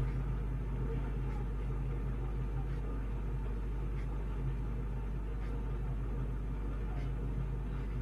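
Steady low background hum with a few faint ticks, as a felt-tip marker draws short strokes on paper.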